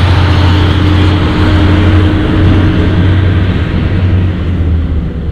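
Heavy double-trailer haul truck driving past: loud diesel engine drone with a steady low hum and tyre noise, the higher part of the sound fading as the truck moves away.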